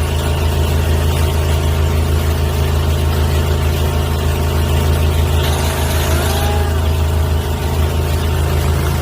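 Engine-driven high-pressure sewer jetter running steadily: a constant low engine drone with hiss above it, unchanged throughout.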